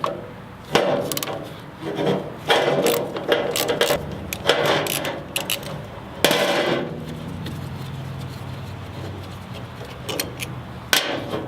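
Parts of an old manual-transmission shifter assembly being worked apart on a table as the shifter base is separated: a few sharp knocks and clatters with some scraping, spaced a second or two apart. A steady low hum comes in past the middle.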